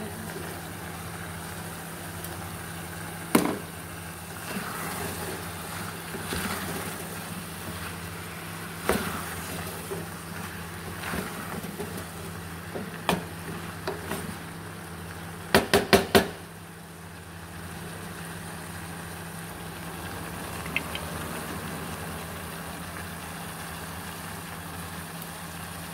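Wooden spoon stirring chunks of liver and carrots in an aluminium pot, with a few single knocks against the pot and a quick run of four sharp knocks about sixteen seconds in, over a steady low hum.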